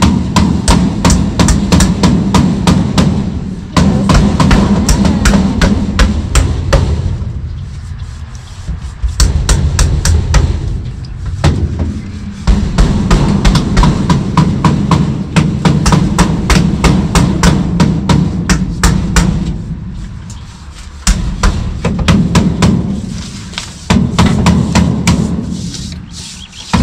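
Background music with a fast, steady drum beat over a low bass line, coming in phrases of a few seconds that fade and then start again.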